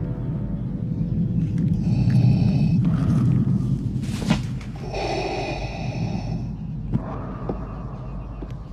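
Darth Vader's mechanical respirator breathing, two slow breaths, over the low steady hum of a starship interior, with a sharp click between them.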